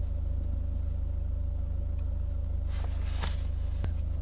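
Steady low electrical hum with faint steady tones above it, and no voice. A couple of faint clicks and brief rustles come in the second half.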